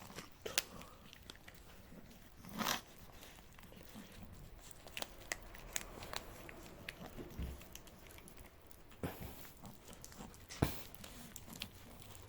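Cats licking and chewing at a squeeze-tube churu treat, with soft scattered clicks and crinkling of the treat packet and a few sharper knocks.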